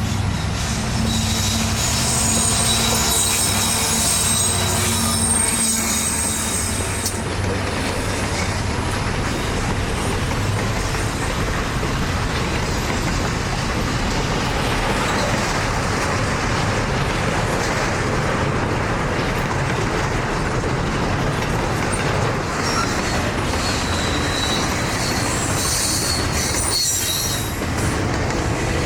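Freight train rolling past with a steady rumble of wheels on rail. High-pitched wheel squeal rises over it in the first few seconds and again near the end.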